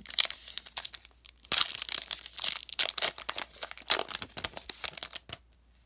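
Foil wrapper of a Pokémon trading-card booster pack being torn open and crinkled in the hand: a dense run of sharp crackles that dies down near the end.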